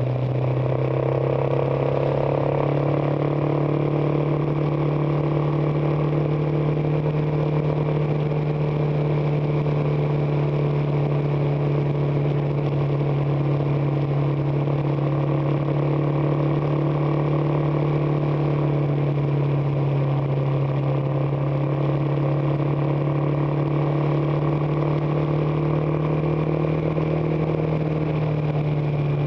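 Suzuki DR650 single-cylinder four-stroke engine running at a steady cruising speed, heard from the riding motorcycle, with its note holding nearly constant over a steady rush of wind and road noise.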